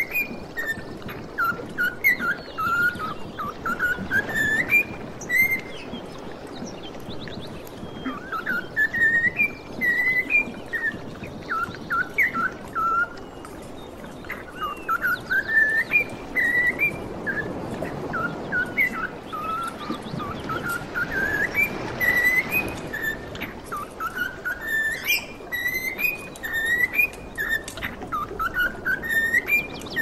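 Small pet parrot whistling a song: repeated phrases of clear notes that glide up and down, many rising in steps, with faint higher chirps behind.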